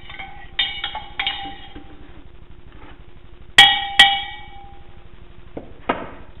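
Metal teaspoon stirring coffee in a ceramic mug, clinking lightly against the side a few times. It is then tapped twice on the mug, giving two loud ringing tings less than half a second apart. A duller knock follows near the end.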